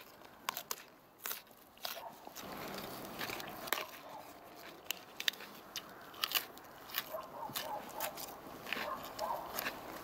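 Raw white cabbage being bitten and chewed, a string of crisp crunches, with cabbage leaves being torn apart by hand.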